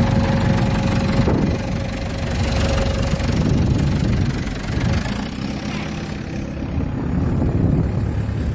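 A machinery engine idling steadily, with a continuous low rumble.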